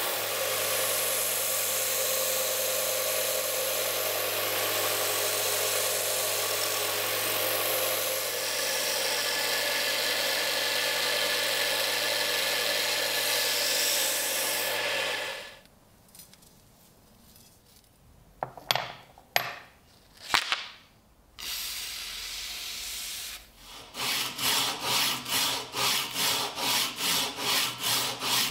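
Einhell bench grinder's belt-sander arm running with a steel knife blade held against the belt: a steady grinding hiss over the motor hum that cuts off suddenly about halfway through. A few handling clicks follow, then fast back-and-forth hand rubbing of the blade at about three strokes a second near the end.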